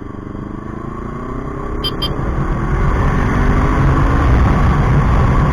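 Kawasaki Ninja 400 parallel-twin engine with an Akrapovic exhaust, accelerating. The exhaust note rises steadily in pitch and grows louder over about four seconds.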